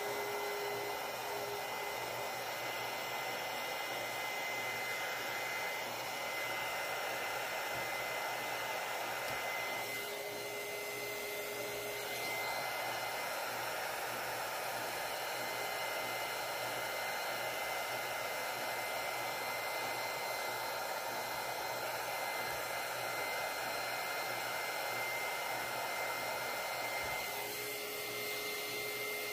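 Electric heat gun running steadily, a constant blowing noise with a thin high whine, used to heat vinyl wrap so it stretches around the cut holes.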